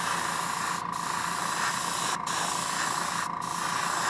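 Airbrush spraying white paint at high air pressure over a black base coat, the first step of a crackle-paint finish on a swimbait lure: a steady hiss broken by three brief gaps.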